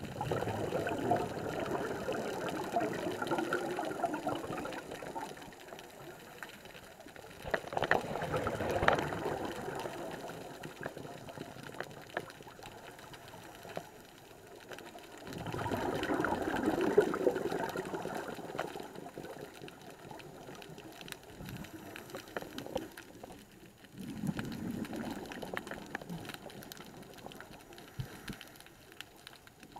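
Scuba regulator exhaust bubbles as a diver breathes out underwater: four bubbling exhalations about eight seconds apart, with quieter stretches between them.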